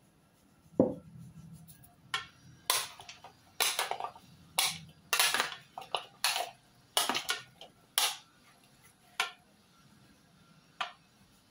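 Two forks clinking and scraping against a glass bowl as a salad is tossed: a string of short, irregular clattering strokes. A single sharp knock comes about a second in, and one last click near the end.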